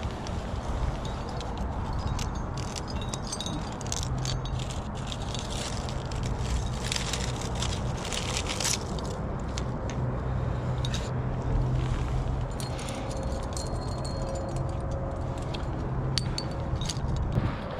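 Metal climbing gear on the harness rack, carabiners and protection, clinking and jangling again and again as the climber moves up the rock, over a low wind rumble on the helmet microphone.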